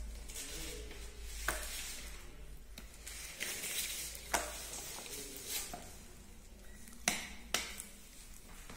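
A plastic ostomy pouch is handled and pressed onto its baseplate ring by gloved hands. There are about half a dozen short, sharp clicks and crinkles, a second or so apart.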